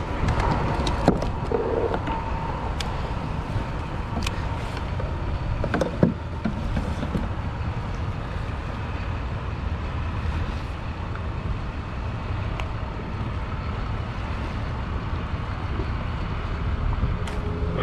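Steady low outdoor rumble of wind and water around an open kayak, broken by a couple of sharp knocks, about a second and six seconds in, as a small tautog and its rig are handled on the plastic hull.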